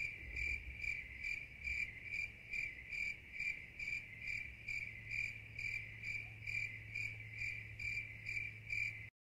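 A cricket chirping in an even rhythm, a little over two chirps a second, over a faint steady low hum. The sound starts and stops abruptly.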